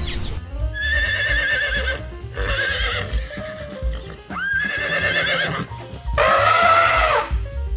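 Horse whinnying four times, each call high and quavering, over background music with a steady low beat.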